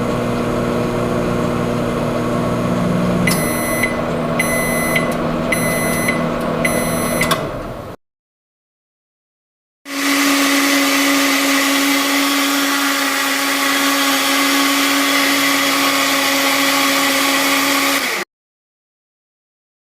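A steady machine hum with four evenly spaced electronic beeps about a second apart, fading out near the middle. After a short silence a second steady motor hum with a hiss runs for several seconds and cuts off suddenly.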